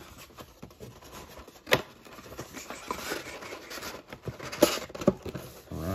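Cardboard trading-card hobby box being handled as its display lid is folded back: scraping and rustling of card stock with a few sharp taps, one a couple of seconds in and two more near the end.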